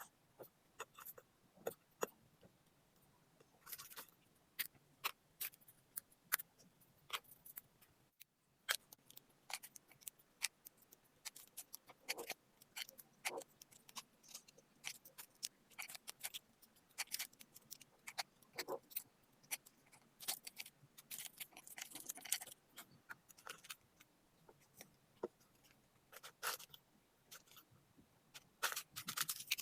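Close-up eating sounds: many faint, irregular wet clicks and smacks of chewing and of fingers working food, packed more densely near the end.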